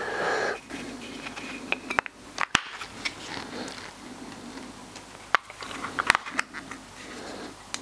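Small plastic hanging camping lamp being handled: scattered light clicks and rattles as AAA batteries go into it and the two halves of its housing are fitted back together.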